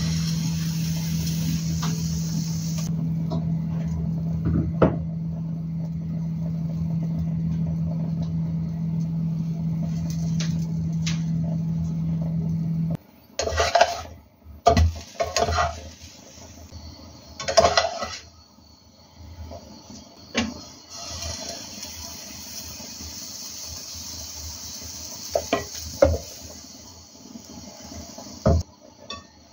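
A steady low hum for the first half that cuts off suddenly. After it, a spatula knocks and scrapes against a nonstick frying pan while a pancake cooks, with a faint sizzle in the later part.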